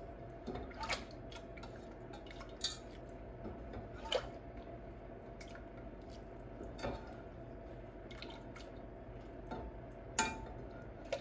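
A slotted metal spatula clinking and tapping against a metal saucepan while scooping cooked penne out of its water, with wet drips as the pasta is lifted. It comes as about half a dozen scattered light clicks, the sharpest near the end, over a faint steady hum.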